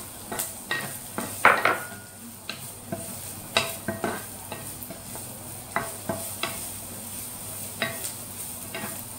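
Carrots stir-frying in hot oil with garlic and onion: a wooden spatula knocks and scrapes against the pan at irregular intervals over a steady sizzle.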